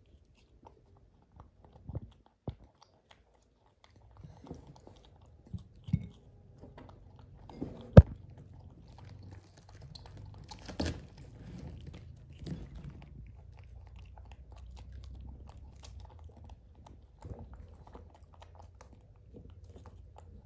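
Baby macaque chewing and biting soft jackfruit pulp, with scattered small wet clicks. One sharp click about eight seconds in is the loudest sound, and a low steady rumble runs under the second half.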